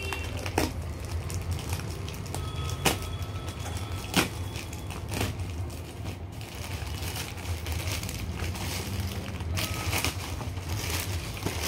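Utility knife slitting a plastic courier mailer, with the plastic crinkling and rustling and a few sharp clicks. The rustling grows busier in the second half as the plastic is pulled open, over a steady low hum.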